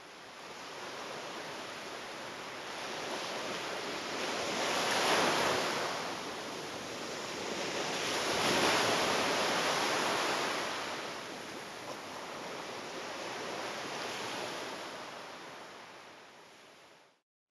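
Ocean waves washing in: a steady rushing that swells about five and about nine seconds in, then fades out near the end.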